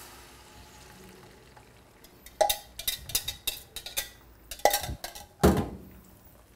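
A fork tapping and scraping inside a plastic measuring jug to get the last of the beaten egg out into the frying pan: a run of sharp clicks and taps starting about two seconds in. It ends with a heavier knock as the jug is set down on the counter.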